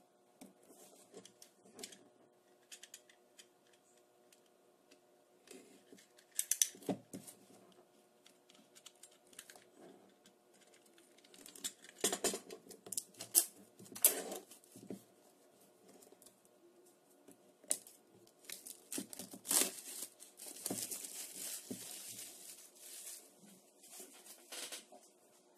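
Hands unwrapping a smartwatch's cardboard box: plastic shrink wrap crinkling and tearing, with scattered clicks and taps of fingers on the box. There is a longer rustle from about 20 seconds in that lasts a few seconds.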